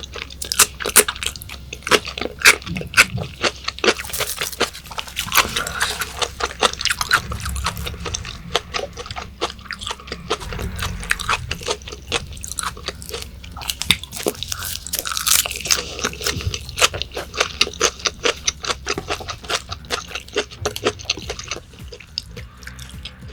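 Close-miked chewing of raw yellowtail sashimi: a dense run of quick, wet mouth clicks and smacks with some crunching.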